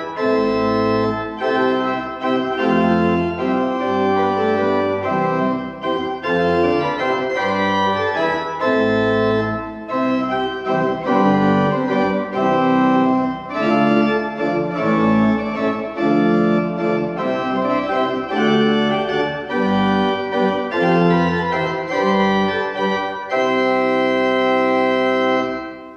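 Church pipe organ playing a piece in full sustained chords over low pedal bass notes, closing on a long held chord that cuts off at the end.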